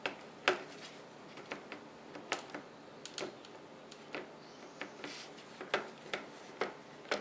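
Irregular light clicks and crinkles from a disposable aluminium foil pie tin flexing as fingers crimp an air-dry clay crust around its rim.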